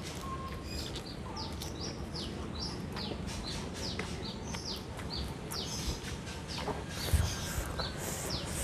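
Birds chirping all around: a steady run of short, high, falling chirps, a few each second. A soft low bump about seven seconds in.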